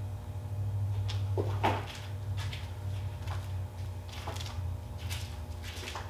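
A person rummaging for an object: scattered clicks and knocks, like a cupboard or drawer being handled, with the loudest knock and scrape about a second and a half in, over a steady low hum.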